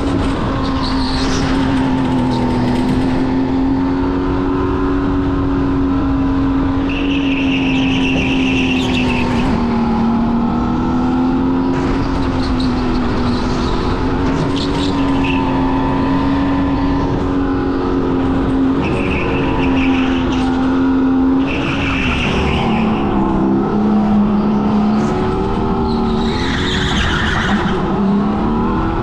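Racing go-kart engine running at high, nearly steady revs, its pitch dipping for a few seconds past two thirds of the way and then climbing again. Short bursts of tyre squeal come several times as the kart corners.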